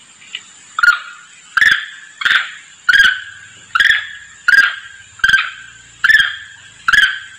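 Long-tailed macaque calling: a short, sharp call repeated about every three-quarters of a second, nine times, each ending in a quickly fading tail, over a faint steady high tone. It is a monkey lure call, a macaque calling to others of its troop.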